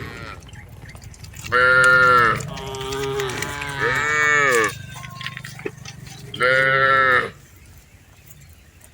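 Cattle calling: four short bellows, each under a second, with a pitch that rises and falls, the second and third close together and the last a little later. A steady low hum runs underneath.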